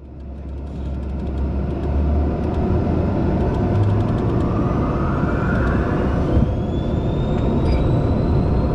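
Aircraft engine running steadily, heard inside the cockpit as the plane rolls along the runway; it fades in over the first couple of seconds, and about halfway through a thin whine rises in pitch and then holds.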